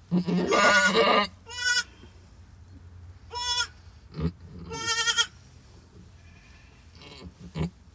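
Doe goat in labour crying out as she pushes. First comes one long, loud, strained bleat, then three short, high bleats a second or two apart. A couple of soft low knocks fall in between.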